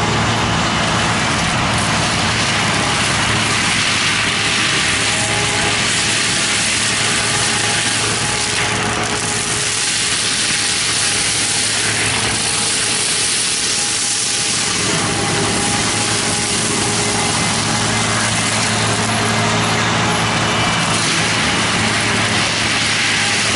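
Heavy machine's diesel engine running steadily under a loud, dense rushing and crunching noise of the equipment working on wood.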